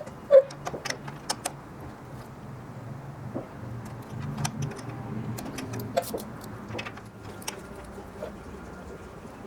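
Wrench and fittings clicking and clinking as aircraft brake line fittings are torqued, with the loudest click about half a second in and smaller clicks scattered after it. A low steady hum runs underneath.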